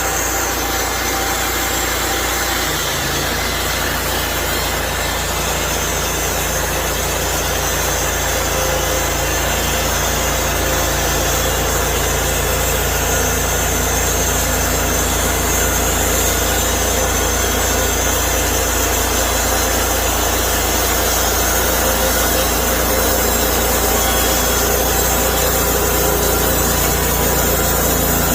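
Sawmill engine running steadily while the saw mills hemlock logs into lumber.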